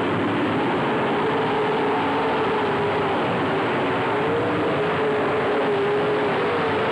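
Several dirt late model race cars' V8 engines running on the track, a steady mass of engine noise with one engine's pitch wavering up and down as the cars go around.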